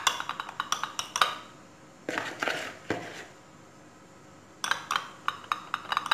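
Metal spoon clinking and scraping against a ceramic plate and ring mould as steamed couscous is pressed down and levelled: quick runs of clinks in the first second and again near the end, with a scrape about two seconds in.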